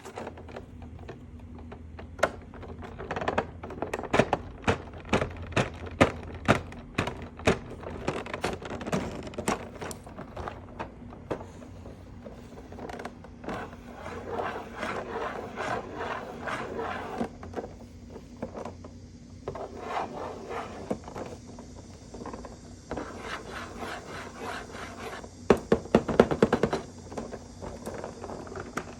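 Hands handling a toy playset and its packaging: rubbing and scraping, with runs of sharp clicks and taps, densest near the start and again near the end.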